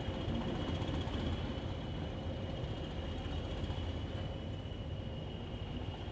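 Class 20 diesel locomotive's English Electric 8SVT engine running steadily while stationary, a low rumble with a steady high whistle over it.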